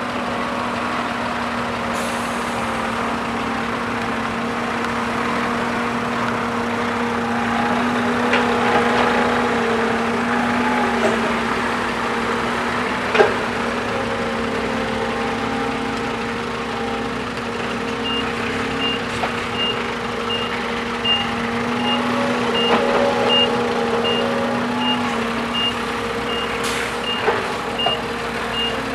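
Heavy diesel engine of a Kobelco hydraulic excavator running steadily, with scattered knocks and clanks, the loudest about halfway. About two-thirds of the way in, a reversing alarm starts beeping a little over once a second.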